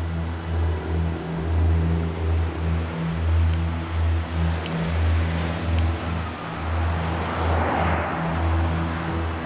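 Low, uneven rumble of motor traffic, with three faint sharp clicks near the middle.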